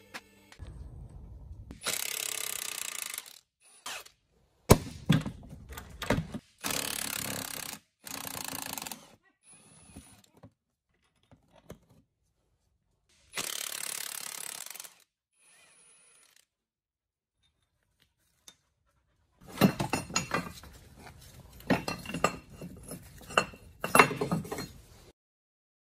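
Tools working the bolts of a car's gearbox mount bracket: several short bursts of rasping tool noise. After a pause, a run of sharp metal knocks and clanks as the bracket is worked free and removed.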